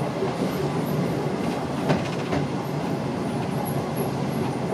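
Double-deck electric tram running along its track, with a steady rumble of wheels on rail. A few sharp clicks come about two seconds in.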